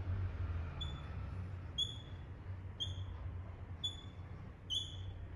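Dry-erase marker squeaking on a whiteboard as small circles are drawn: five short, high-pitched squeaks, about one a second.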